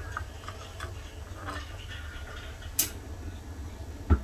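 Metal ladle stirring sesame-seed teriyaki sauce in a nonstick pan, with a few light ticks against the pan, a sharp clink a little before three seconds in and a louder knock near the end, over a steady low hum.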